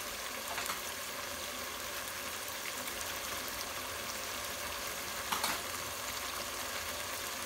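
Chicken pieces cooking in a pot of shallow liquid on the stove: a steady sizzle with faint crackles, and one louder pop a little past five seconds in.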